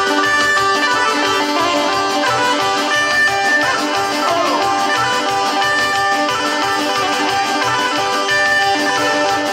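Fast Serbian kolo folk dance music: a melody over a steady pulsing beat.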